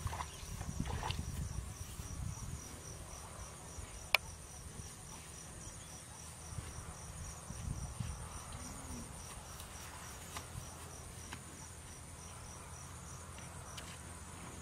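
Insects, crickets or similar, calling steadily with a high, rapidly pulsing trill. A single sharp click about four seconds in stands out above it, with low rustling in the first two seconds and again around eight seconds in.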